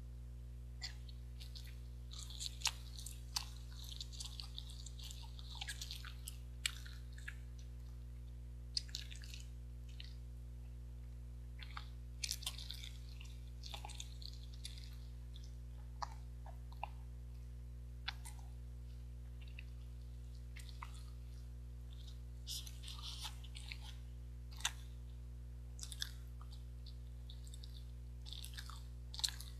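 Close, wet chewing and mouth sounds of someone eating jeungpyeon, soft steamed rice cakes: irregular clusters of small smacks and clicks with pauses between them, over a steady low hum.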